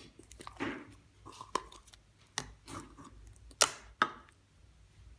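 Hands squishing, stretching and poking a slime, with sharp clicking pops from air bubbles bursting in it, the loudest near the end.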